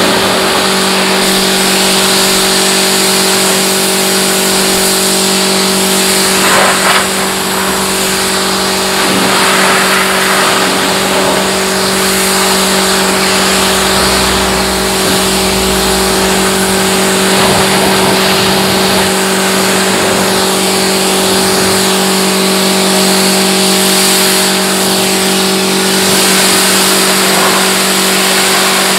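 Pressure washer running steadily: a constant motor-and-pump hum under the hiss of the water jet blasting caked mud off a car's bodywork.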